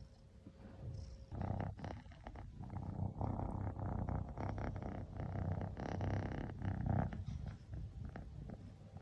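Ragdoll cat rumbling low in its throat, a steady pulsing sound that grows louder and rougher about a second and a half in and eases off near the end.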